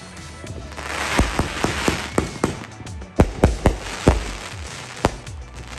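Consumer fireworks going off: a hissing, crackling rush about a second in, then a run of sharp bangs, several close together in the middle and one more near the end.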